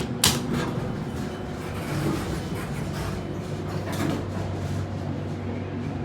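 Hydraulic elevator's doors sliding open, with a sharp click just after the start over a steady low hum.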